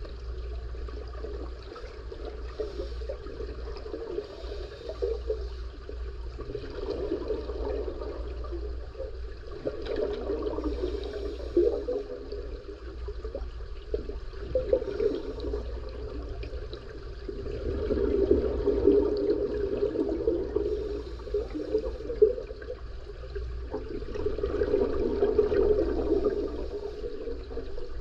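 Underwater in a pool: a scuba diver breathing through a regulator, the exhaled bubbles rushing out in long bursts every few seconds with quieter stretches between breaths. A low steady hum runs underneath.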